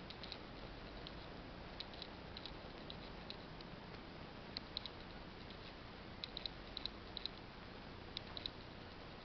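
Faint steady hiss of a quiet empty room, with scattered light clicks, some coming in quick clusters of two or three about halfway through and near the end.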